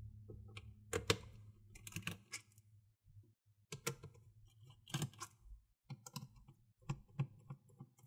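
Light, irregular clicks and taps of a precision Phillips #0 screwdriver working the long screws out of a laptop's plastic bottom cover.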